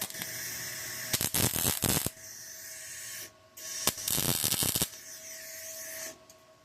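Electric welding arc crackling and hissing in two runs: the first about three seconds long with a louder crackling stretch in the middle, then a short pause, then a second run of about two and a half seconds that cuts off suddenly.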